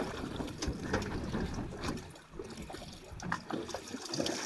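Water sloshing and slapping against a boat's hull, with irregular sharp clicks and ticks from a rod and reel as a fish is fought on the line.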